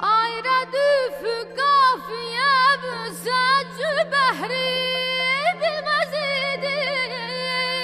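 A woman singing a wordless, heavily ornamented melisma in Azerbaijani mugham style, with quick trills and sharp pitch dips, over a steady low drone from the accompanying instruments.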